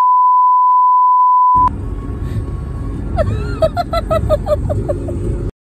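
A loud, steady test-tone beep, the kind that goes with TV colour bars, cutting off suddenly about a second and a half in. Then the rumble of a moving car's cabin with a quick run of high giggling, until the sound cuts out abruptly near the end.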